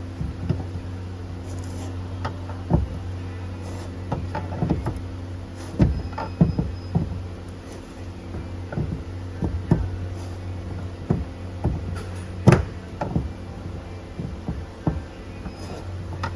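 Irregular clicks and knocks of hand work on parts and tools over a steady low hum, with one sharper knock near the end.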